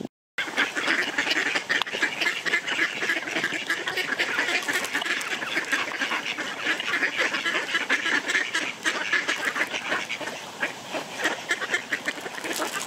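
A flock of mallard ducks quacking continuously, many birds calling over one another as they crowd in to be fed bread.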